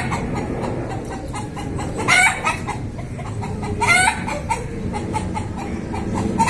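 Rooster clucking in a quick run of short notes, broken by a loud, sharp call about every two seconds.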